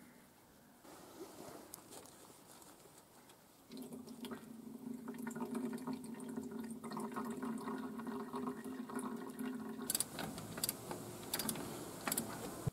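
Engine coolant draining from the water-jacket drain of a Nissan SD22 diesel engine into a plastic jerry can: about four seconds in, a steady stream starts filling the can with a hollow, steady note. About ten seconds in, the pouring gives way to a few sharp clicks and knocks.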